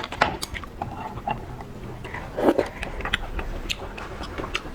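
Lobster shell being worked by hand to pull the meat out: a run of sharp clicks and crackles, with a louder burst about two and a half seconds in.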